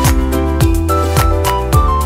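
Background music with a steady beat, a deep thud about twice a second, under a short repeating melody.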